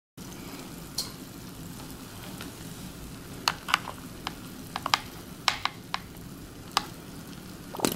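Scattered small clicks and pops over a faint steady hum as a plastic dropper squirts water onto relish and baking soda in a silicone ice cube tray, with a neighbouring cell fizzing with foam.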